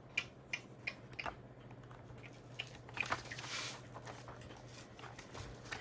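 Scattered light clicks and taps with a brief rustle about three seconds in, over a faint steady low hum.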